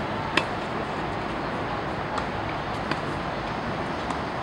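Tennis ball struck with rackets and bouncing on a hard court in a practice rally: a few sharp pops, the loudest about half a second in, over a steady background noise.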